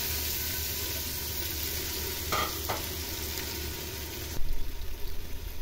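Chicken pieces and sliced onions sizzling in hot oil in a clay handi, stirred with a spatula, with a few short scrapes of the spatula about two and a half seconds in. The sizzle thins and the stirring noise turns uneven near the end.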